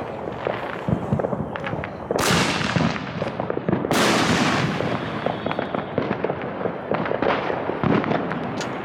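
Fireworks going off all around: a steady scatter of sharp pops and bangs, with two longer hissing, crackling bursts about two and four seconds in.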